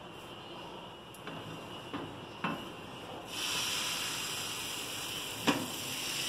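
Pancake batter hitting a hot oiled frying pan and sizzling, the hiss starting suddenly about three seconds in and holding steady. Before it, a few light clicks of the ladle and pan being handled, and a sharp knock near the end.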